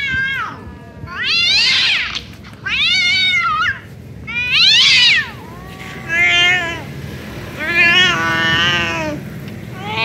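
Tabby tom cat meowing over and over: about six loud, drawn-out meows, each under a second long and rising then falling in pitch, coming roughly one every one and a half seconds.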